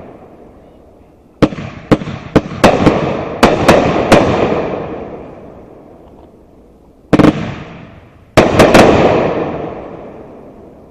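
Keystone Fireworks 'Nishiki Willows' aerial firework shells bursting: a quick run of sharp bangs in the first few seconds, one more bang, then three close together near the end, each fading away over a few seconds.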